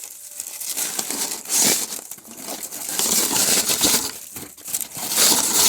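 Protective packaging around a candle being unwrapped and crumpled by hand: loud, continuous crinkling and crackling.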